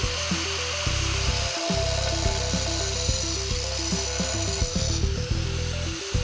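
Handheld angle grinder cutting and grinding a roof tile: a continuous harsh grinding hiss as the spinning disc works the tile, notching it so the aluminium roof hook will fit beneath.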